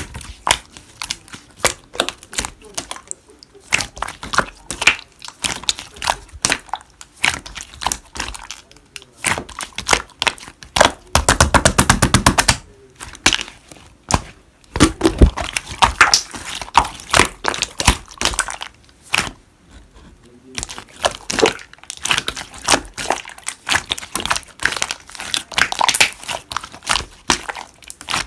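Slime being squeezed and pressed by hand, giving dense runs of small crackling pops and clicks, with one fast unbroken run of clicks about ten seconds in.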